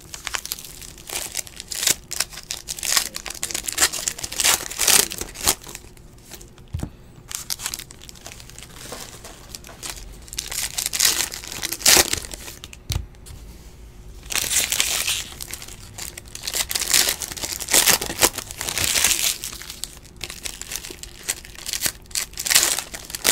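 Foil trading-card pack wrappers crinkling and tearing open, in repeated bursts, along with the cards themselves being shuffled and flicked.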